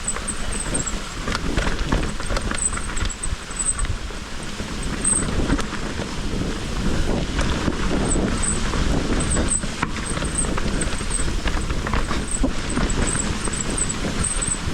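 Mountain bike riding down a wet, rocky trail: continuous tyre and wind noise with frequent knocks and rattles from the bike over rough ground, and short high squeaks scattered throughout.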